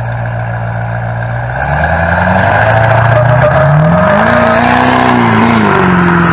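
LB7 Duramax 6.6-litre V8 turbodiesel idling, then revved up about a second and a half in, held high and let back down near the end. A whine climbs and falls with the revs.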